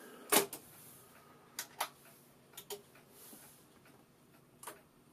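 Several sharp mechanical clicks from the Teac A-4000S reel-to-reel deck's front-panel transport push buttons being pressed. A louder click comes near the start, then pairs of clicks and a last one near the end.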